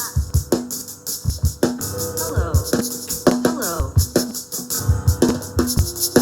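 Music: a rhythmic beat with low drum hits and a steady shaker-like rattle, with gliding pitched tones in between.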